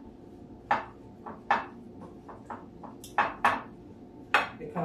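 Dishes and utensils clinking and knocking in a kitchen: about ten short, irregular clinks and taps.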